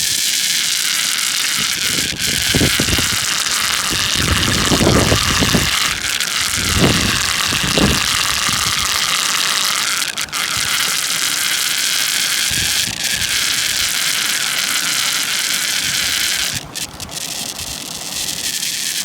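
Whirlpool funnel at a dam drain sucking down water and air: a loud, steady rushing hiss with a faint whistle in it, and low gurgling surges in the first several seconds.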